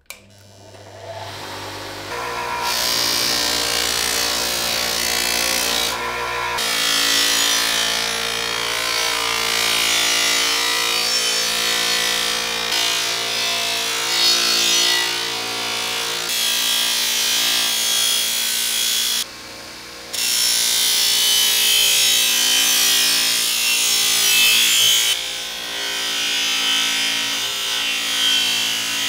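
An abrasive power tool spins up over the first two seconds, then runs under load with a steady scraping hiss over a motor whine. It eases off briefly about six seconds in and for about a second near twenty seconds.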